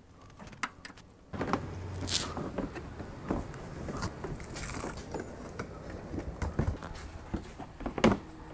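Scattered light knocks and clicks of plastic car body parts being handled and pushed into place on a rear bumper, with a louder knock near the end. A low steady background noise comes in about a second in.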